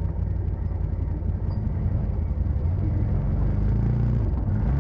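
Side-by-side UTV engine running, its pitch rising from about three and a half seconds in as it revs up, then easing off right at the end.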